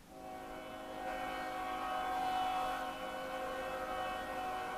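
Norfolk Southern locomotive air horn sounding one long, steady chord of several notes that swells slightly and stops near the end.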